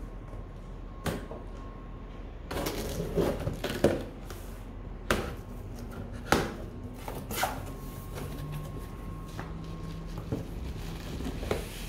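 Hands handling a cardboard toy box: rustling a few seconds in, then several sharp taps and knocks against the box.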